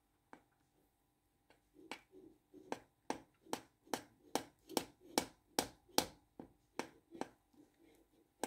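A stirring utensil knocking against the side of a glass mixing bowl in a steady rhythm, about two and a half knocks a second, as flour is worked into a thick batter. The knocks start about two seconds in and stop a little after seven seconds.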